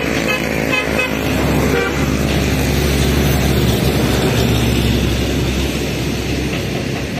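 A motor vehicle's engine running steadily close by, with a few short, high horn toots in the first two seconds.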